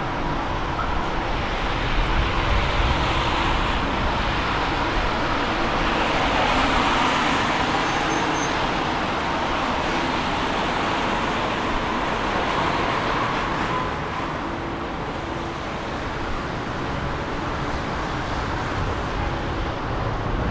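Budapest M1 (Millennium Underground) metro train running, a steady rumble of wheels and motors that eases slightly about two-thirds through.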